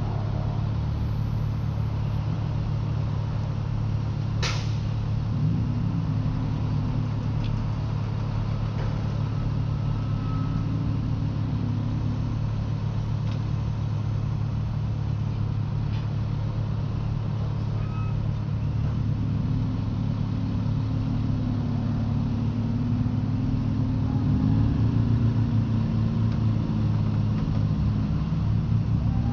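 Steady low drone of idling vehicle engines, with the pitch shifting a little at times. A single sharp knock comes about four and a half seconds in.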